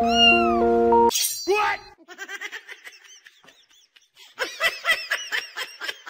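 Background music cuts off about a second in. A person's voice follows, then a run of rapid laughter near the end.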